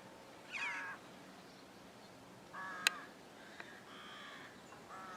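A crow-like bird cawing: about four short calls, a second or so apart, the third fainter. A single sharp click comes about three seconds in.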